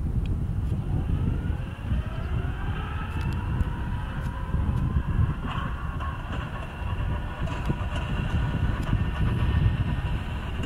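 Single-engine high-wing light aircraft's piston engine and propeller rising in pitch over the first few seconds as it powers up for the takeoff roll, then holding a steady drone. A heavy low rumble runs beneath it.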